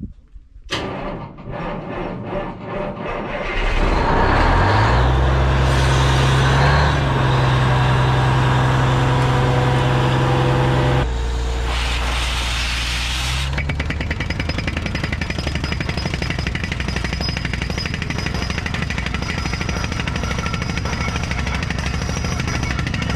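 Truck-mounted borewell drilling rig starting up: a few loose knocks, then about four seconds in its engine comes on and rises to a loud, steady run. Around eleven seconds the sound changes, with a brief rush of air, and then the down-the-hole air hammer sets in with a rapid, even pounding as the bit starts boring, blowing dust out of the hole.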